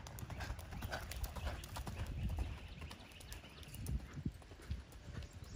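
Horse loping around a dirt round pen: a run of dull hoofbeats on the soft arena footing.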